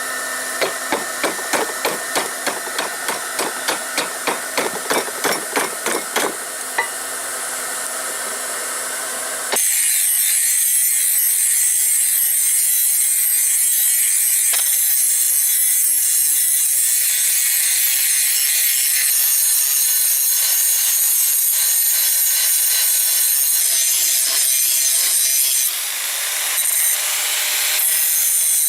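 Hammer blows on steel at an anvil, about three strikes a second, over a steady low hum. After about nine seconds this cuts abruptly to a louder, steady, harsh rasping noise that runs on.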